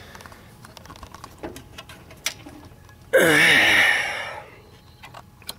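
Faint scattered clicks, then about three seconds in a loud, breathy vocal sound from a person, falling in pitch and lasting just over a second.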